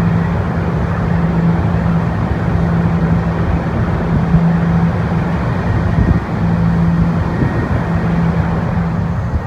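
Washington Metrorail train car running between stations, heard from inside the car: a steady rumble of wheels on track with a low hum that drops out briefly now and then.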